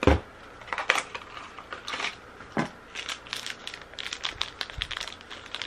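Cardboard and plastic packaging of a Ty Mini Boos blind box crinkling and rustling as it is opened by hand, pink plastic bag crumpled between the fingers. A dull thump right at the start.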